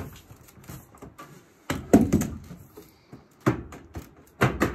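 Front-load dryer door knocking and clicking as it is worked loose from the clips that hold it in place and lifted off; a few sharp knocks, the loudest about two seconds in and again near the end.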